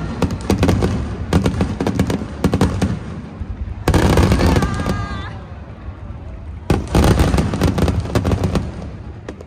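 Aerial fireworks going off: rapid trains of sharp crackling reports, with two big bursts about four and seven seconds in, and the booming carrying low.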